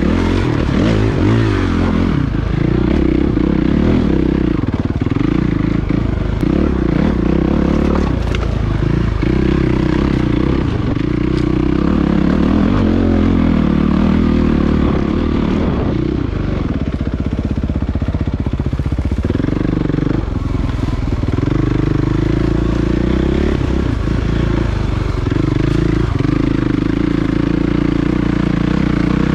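Suzuki RMX450Z's single-cylinder four-stroke engine under way on a dirt bike, revs rising and falling again and again as the throttle is opened and rolled off. Occasional sharp clicks and clatter sound over the engine.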